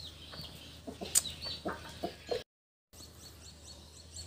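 A chicken clucking in a few short, sharp notes, with small birds chirping high in the background. The sound cuts out completely for a split second a little past halfway.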